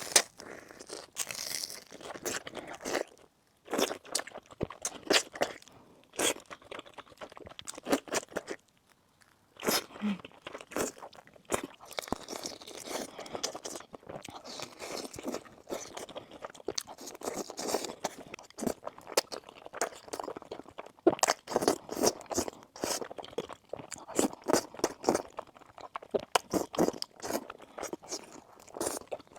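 Close-miked eating: a person biting into and chewing crunchy food, with crackling crunches coming in irregular clusters and two short pauses, one a few seconds in and one around nine seconds in.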